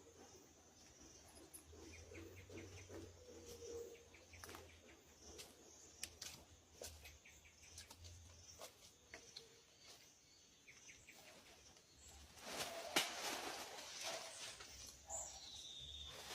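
Quiet outdoor ambience with scattered small clicks and snaps. A louder rustling stretch comes about two-thirds through, with a sharp knock in it, and a short falling bird call follows near the end.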